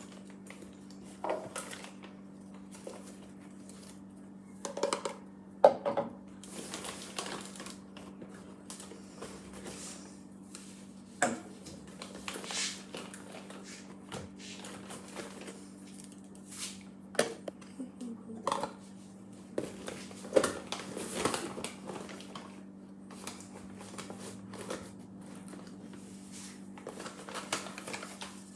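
Scattered knocks, clicks and clatters of small objects being handled and set down, irregular and spread throughout, over a steady low hum.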